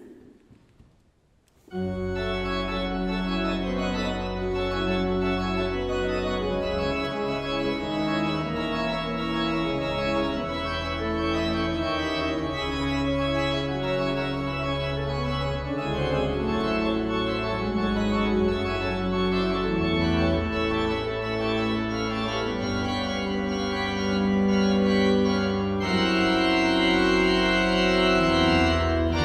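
Church organ playing slow sustained chords over deep pedal bass notes, coming in about two seconds in after a moment of near silence and growing louder in the last few seconds.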